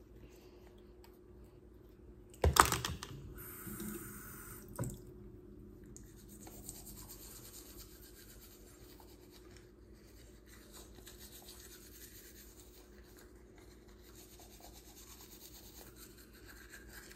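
Manual toothbrush scrubbing teeth: faint, steady brushing strokes from about six seconds in. Before that comes a sharp knock about two and a half seconds in and a smaller click near five seconds.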